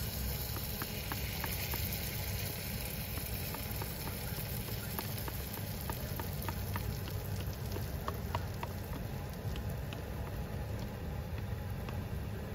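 Batter sizzling in a hot frying pan as it is poured in, with scattered small pops and crackles, over a steady low rumble.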